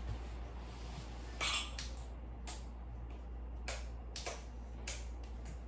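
Metal telescoping light stand being handled and adjusted: a scatter of short clicks and light metallic rattles from its sliding sections and locking knob, over a steady low hum.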